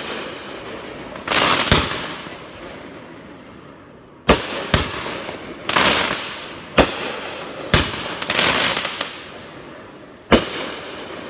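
Aerial fireworks shells bursting overhead: about six sharp bangs, some close together, with spells of crackling from gold glittering stars after several of them.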